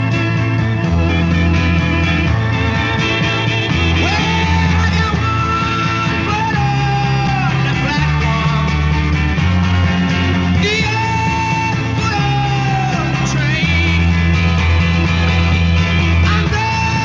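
1960s folk-rock band playing a minor-key ballad on Vox Continental electric organ, electric guitar, bass and drums. A male lead vocal comes in about four seconds in, singing long held notes that slide up and down.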